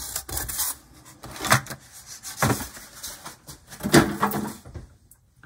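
Polystyrene foam and plastic packaging being handled and moved aside: several short rubbing and knocking noises, the loudest about four seconds in.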